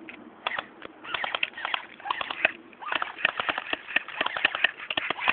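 Airsoft guns firing: a fast, irregular run of sharp clicking shots, some in quick bursts, overlapping one another.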